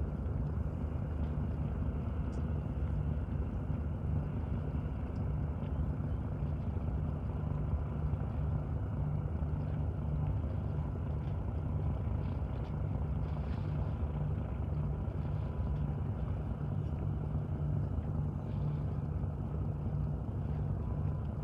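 A steady, low engine drone that holds an even pitch and level.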